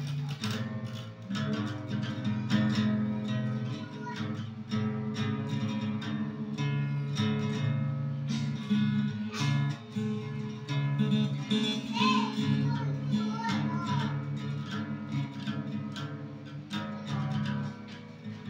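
Acoustic guitar being played by hand, chords strummed and single notes picked between them.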